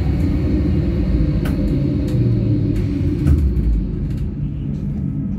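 Trolleybus riding along a city street, heard from inside the passenger cabin: a steady low rumble of road and running noise with a few faint clicks and rattles.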